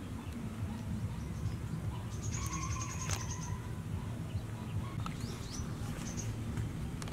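Small birds chirping: a short high trill about two and a half seconds in, then several quick, high, rising chirps, over a steady low background hum.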